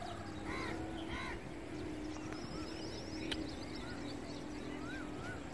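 Birds calling over a steady low hum: two short arching calls near the start, quick high chirps, and wavering whistled calls near the end, with one sharp click in the middle.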